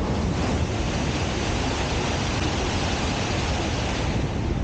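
Tohoku Shinkansen Hayabusa train passing straight through the station at about 310 to 320 km/h without stopping: a loud, steady rush that fades near the end.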